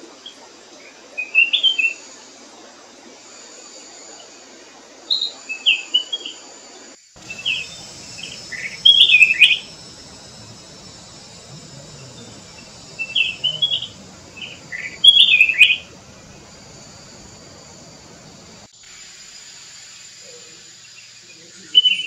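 Flame-throated bulbul singing: short, bright whistled phrases that recur every few seconds, over a steady high background hiss of insects.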